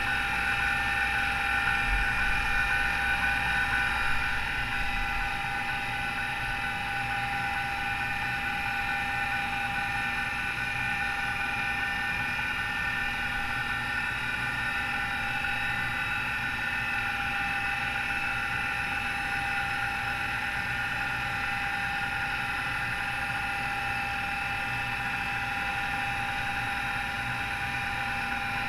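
MiniScribe 2012 MFM hard drive running with a steady, high whine from its worn, noisy bearings while its heads seek back and forth through a seek test. The sound is a little louder in the first few seconds, with a few low knocks.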